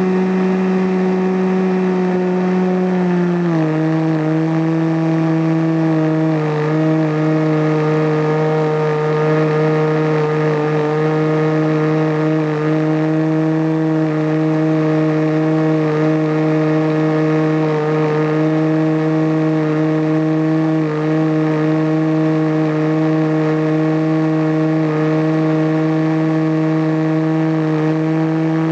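Radio-controlled model airplane's small engine running steadily at high speed, heard from a camera on board. About three and a half seconds in, the pitch steps down as the engine is throttled back, then holds level.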